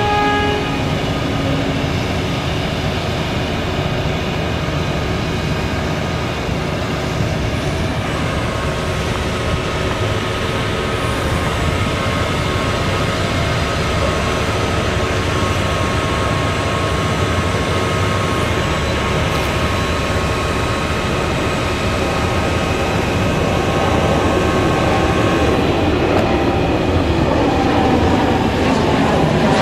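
Crane truck's diesel engine running steadily with the telescopic crane's hydraulics working, with a steady whine over the engine rumble. Near the end, a propeller airplane is heard flying over.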